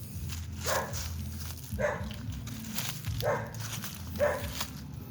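A dog barking repeatedly, about one bark a second, four barks in all, over a low steady hum.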